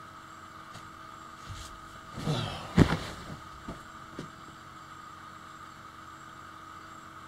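A person getting onto a bed and lying down: rustling of bedding and one sharp thump about three seconds in, then a couple of small knocks. Underneath, a steady background hum with a faint fixed tone.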